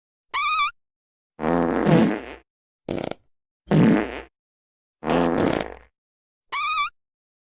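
A run of six separate fart sound effects with silent gaps between them. A short, high, wavering squeak comes about half a second in and another near the end. Between them are three longer, low, buzzy farts and one brief sputtering one around three seconds in.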